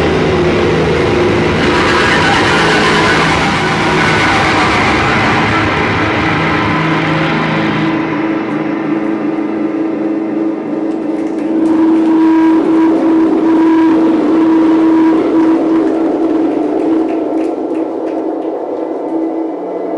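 Live post-rock band playing a dense wall of distorted electric guitar. About eight seconds in, the highs and the low end fall away, leaving a sustained droning guitar tone that swells and holds.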